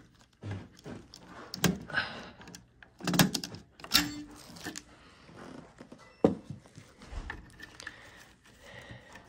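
A handful of separate sharp clicks and knocks, with light plastic rattling in between, as a gloved hand handles a wall thermostat's exposed circuit board and pulls out its AA batteries.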